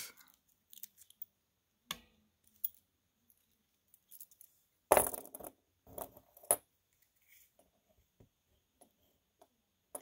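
Metal watch clasp and bracelet clinking and knocking as they are handled and set down on the board, a few scattered clicks with the loudest clatter about five seconds in.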